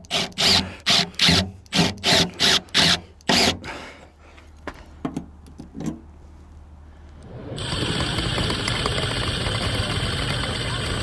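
Metal squealing in short, regular strokes, about two a second, stopping about three and a half seconds in. After a quieter stretch with a few clicks, a power drill with a left-hand bit runs steadily into the head of a steel bolt, its motor whining.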